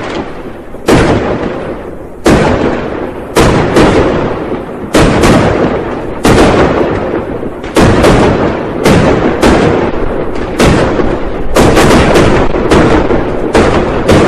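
New Year firecrackers going off in a steady barrage of loud bangs, about one a second and coming faster near the end, each echoing away into the next.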